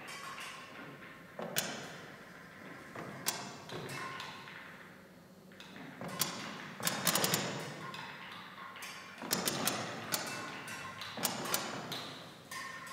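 Improvised percussion on found objects, played through live electronics: irregular sharp strikes and taps, with a quick flurry of hits midway, each trailing off in a noisy wash over a faint steady hum.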